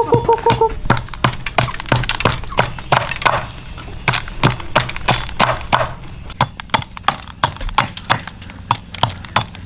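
A quick, irregular series of knocks and thuds, several a second, with a short pitched call at the very start.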